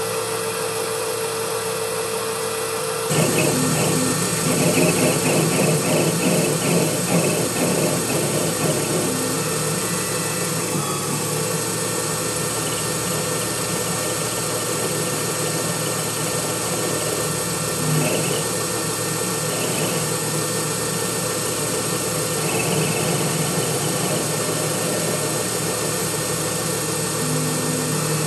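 Small CNC lathe running through a threading cut on a pull stud: a steady motor whine and spindle hum, which grows louder and rougher about three seconds in and then settles.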